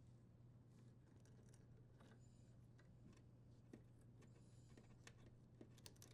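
Near silence with a low steady hum and faint, scattered small clicks from plastic wire nuts and wires being handled as the dishwasher's junction-box wires are untwisted and disconnected.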